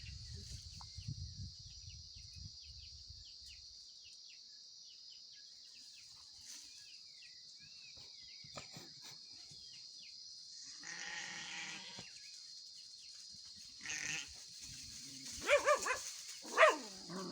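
Steady high insect drone with faint bird chirps. About two-thirds in a goat bleats once, drawn out, and near the end there are a few louder, shorter animal calls.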